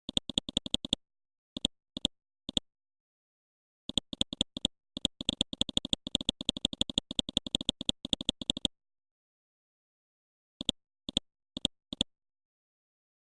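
Runs of short, sharp clicks, up to about eight a second, broken by gaps of dead silence; the longest run comes in the middle, and a few single clicks follow near the end.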